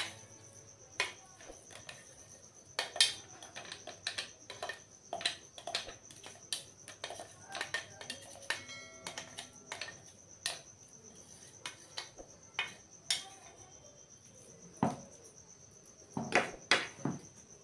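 Metal spoon scraping and knocking against the inside of a stainless steel mixer-grinder jar as ground carrot is scraped out onto a plate: irregular clinks and taps, with a few louder knocks near the end.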